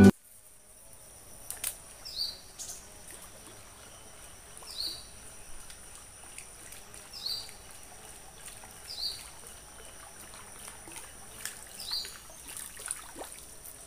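Swamp-forest ambience: a bird's short high call repeats every two seconds or so over a steady high insect drone, with a few faint knocks and rustles.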